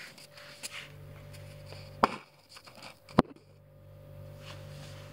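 Two sharp knocks of something hard on a tiled floor, a little over a second apart, over a steady low hum.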